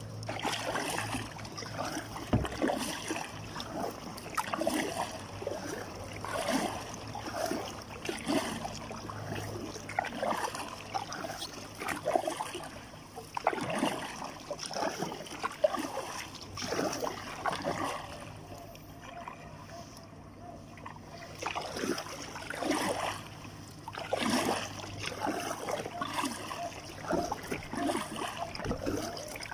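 Kayak paddle strokes splashing in river water, an irregular stroke every second or two, over a steady low hum that fades out about two thirds of the way through.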